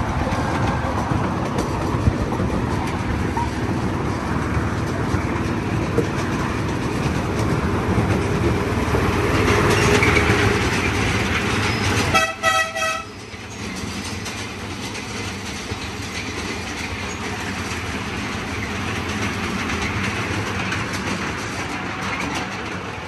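Train running with a steady rumble, and one short horn toot about twelve seconds in, after which the running noise is quieter.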